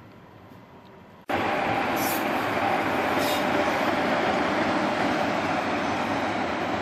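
Electric locomotive running light past on main-line track: a steady rumble of motors and wheels on rail that cuts in suddenly about a second in, with two brief high hisses about a second apart.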